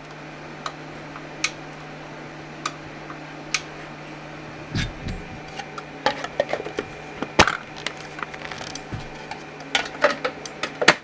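Hands working a plastic infrared beam sensor: single sharp clicks about a second apart, likely its intensity switch being toggled, then a flurry of clicks and knocks as the plastic cover is handled and pressed on, over a steady low hum.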